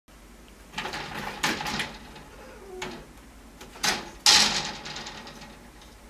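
Two cats in a poke fight through a wire pet gate: a few short hisses and knocks against the gate, the loudest starting sharply about four seconds in.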